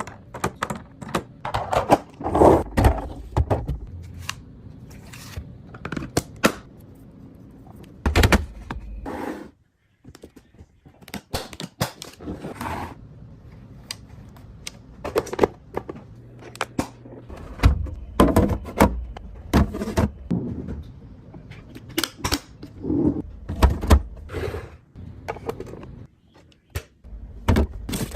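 Items being handled and set down while restocking a fridge: an irregular run of taps, clicks, knocks and thuds of containers and packaging, with a few scrapes, broken by short silent cuts.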